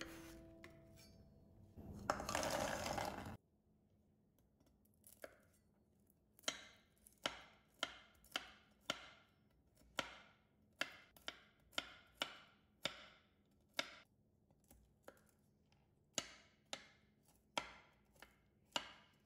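Knife chopping food on a cutting board: a run of sharp, even strokes about twice a second, pausing briefly partway through. A short burst of hiss comes just before the chopping begins.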